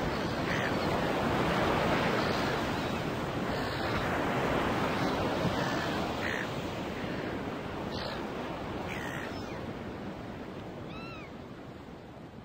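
Ocean waves washing steadily, with short high cries breaking in every second or two; the wash slowly fades out toward the end.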